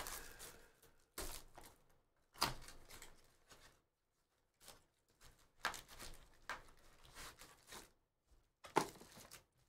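Cardboard box of Bowman's Best baseball cards being opened by hand and its foil-wrapped packs pulled out: a handful of short, faint rustles and light knocks with quiet gaps between them.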